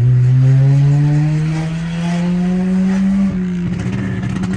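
Volkswagen 1.6 MSI four-cylinder engine running loudly through an exhaust with a diffuser fitted where the catalytic converter's core was. The note rises steadily in pitch for about three seconds, then levels off and holds.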